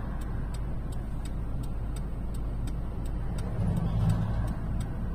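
A car's turn-signal indicator ticks evenly, about three times a second, over the steady low rumble of the engine and road noise inside the cabin.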